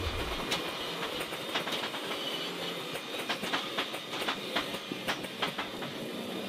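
Mitsubishi Lancer Evolution IX rally car slowing for a right hairpin, heard from inside the cabin: the engine drone falls away about half a second in, followed by a run of irregular sharp clicks and cracks.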